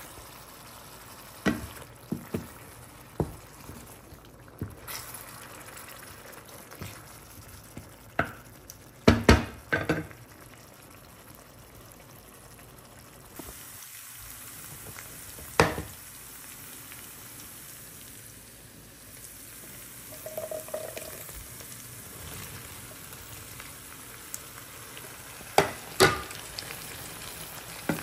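Chicken curry with whisked yogurt sizzling and frying in a stainless steel frying pan, a steady crackling hiss. Now and then come sharp knocks against the pan, a quick cluster of them about nine seconds in and two more near the end.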